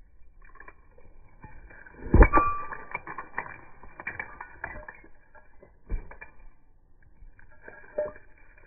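A leather work boot crushing and grinding broken green bottle glass against a wooden railroad tie. There is a loud crunch about two seconds in, followed by a couple of seconds of crackling as the shards grind. Two smaller crunches come near six and eight seconds.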